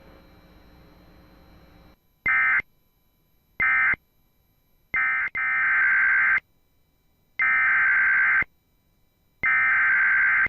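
Emergency Alert System SAME data tones, harsh buzzing bursts: three short ones about 1.3 seconds apart, the end-of-message code, then three longer bursts of about a second each, the header of the next alert. A faint hum fills the first two seconds.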